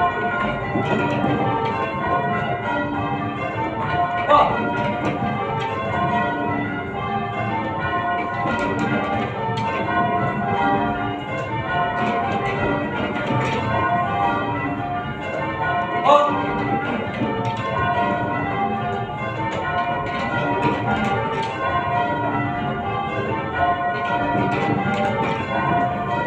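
A ring of eight church tower bells being rung in changes, struck one after another in a steady, even rhythm. Two brief louder sounds stand out about four and sixteen seconds in.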